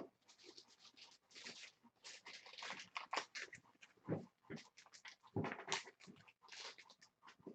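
Quiet rustling and scraping of cards and plastic card holders being handled, with a few soft knocks, one about four seconds in.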